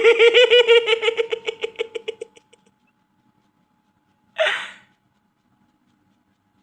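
Cartoon sound track: a high-pitched trilling, voice-like sound pulsing about ten times a second fades out over the first two seconds or so. About four and a half seconds in comes one short breathy vocal sound, like a gasp or hiccup, falling in pitch.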